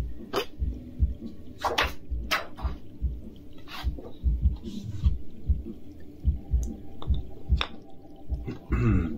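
Instrumental hip-hop backing beat: a deep kick drum pulsing steadily, with scattered sharp clicks over it. A low held tone joins about two-thirds of the way through.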